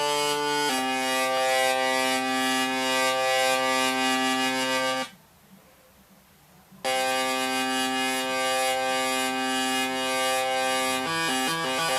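Electronic synthesizer tone, buzzy and rich in overtones, holding steady pitches. It shifts pitch less than a second in, cuts off for about two seconds in the middle, comes back at the same pitch, then jumps quickly between pitches near the end.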